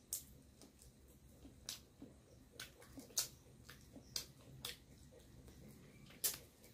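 Faint, wet mouth clicks and lip smacks from chewing a mouthful of rice and curry eaten by hand: about ten short, sharp clicks at irregular intervals.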